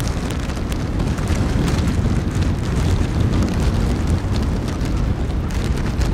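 Strong wind buffeting the camera microphone: a loud, rough low rumble with scattered crackles.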